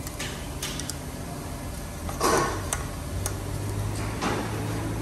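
Light metallic clicks and taps as valves and small parts are handled and fitted into an aluminium cylinder head, with a louder scrape a little over two seconds in and a softer one just after four seconds. A low steady hum comes in about three seconds in.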